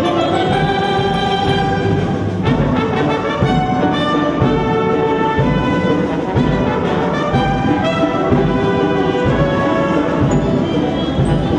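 Youth orchestra playing a fast Mexican son abajeño in 6/8, with brass prominent over strings, saxophones and a steady drum beat.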